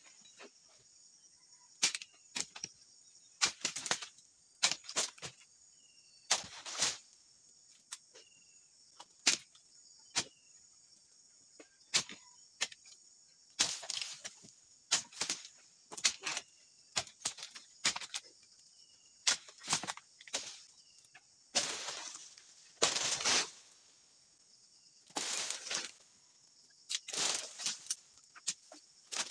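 Repeated sharp chopping strikes of a dodos, a chisel blade on a long pole, cutting into oil palm frond bases, sometimes in quick runs of two or three, with a few longer rustling crashes in the second half. A steady high insect drone runs underneath.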